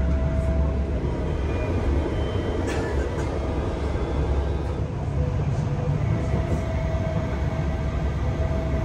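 Utsunomiya Light Line light-rail tram running at speed, heard from inside the passenger cabin. A steady low rumble of wheels on track, with a faint steady tone from the drive over it and an occasional light click.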